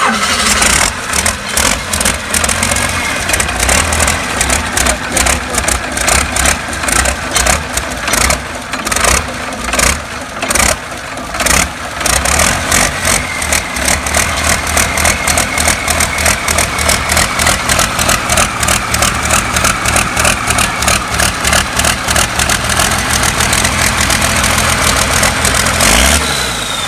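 Freshly overhauled Cummins diesel engine on its first start, running unevenly with a fast knocking beat and dips in the first dozen seconds, then settling into a steadier run.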